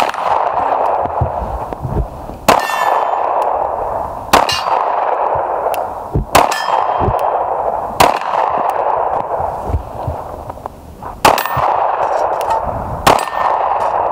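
Glock 26 9mm subcompact pistol fired at steel popper targets, about seven slow, deliberate shots a second and a half to three seconds apart. Several shots are followed by the clang and brief ring of a steel target being hit.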